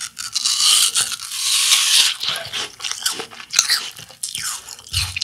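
A bite into a crisp apple: a long, loud crunch as the flesh breaks, followed by a run of shorter crunches as it is chewed.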